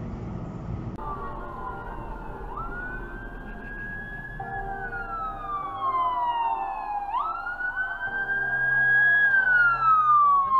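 Emergency vehicle siren wailing in long sweeps: each cycle rises quickly, holds, then falls slowly, twice over. It gets louder about halfway through.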